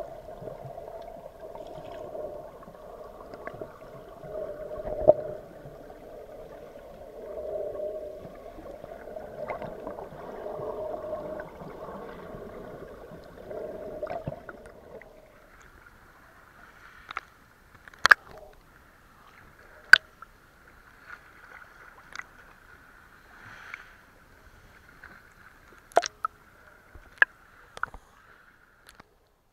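Muffled water sound from a camera held underwater in shallow sea. It swells and fades every two to three seconds for about fifteen seconds. Then it becomes a quieter, thinner hiss broken by several sharp clicks.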